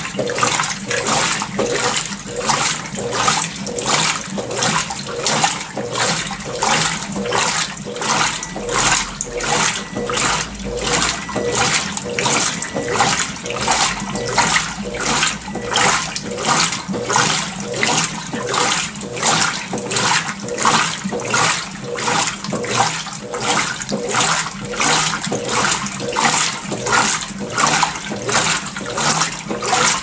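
Consul CWL16AB 16 kg top-load washing machine agitating a load of clothes: water sloshing and churning around the central agitator in a steady rhythm of regular strokes, the wash stage of the cycle.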